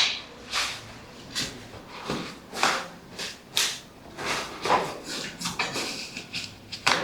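A series of short scraping strokes, about one or two a second.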